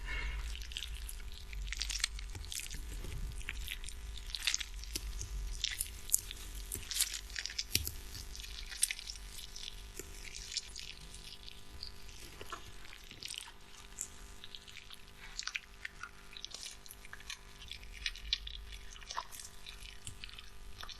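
Ripe tomato squeezed in a hand, squishing, with irregular small crackles and pops as the skin and flesh give way.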